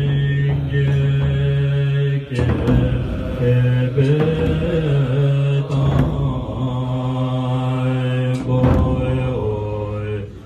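Buddhist monks chanting together in low, long-held tones that break and waver in pitch now and then, with a few sharp strikes about every two seconds.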